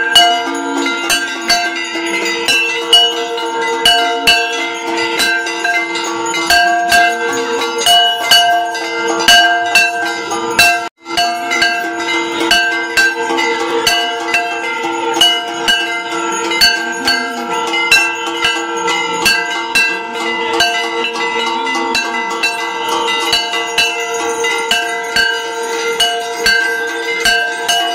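Bells ringing continuously for an evening aarti, struck rapidly over a steady sustained ringing. The sound cuts out for an instant about eleven seconds in.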